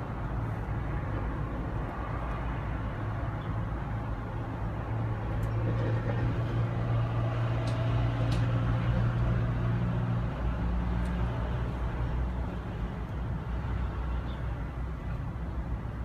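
Low, steady motor-vehicle engine rumble that swells about four seconds in and eases after about ten, with a few faint clicks.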